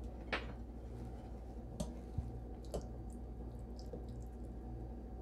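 Faint squishing and a few light scrapes of a spatula working the first piece of saucy, cheesy lasagna loose in its baking dish, over a low steady hum.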